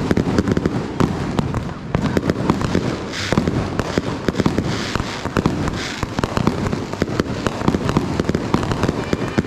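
Fireworks and firecrackers going off in dense, rapid succession, a continuous barrage of pops and bangs. Hissing bursts rise over it three times, about 3 to 6 seconds in.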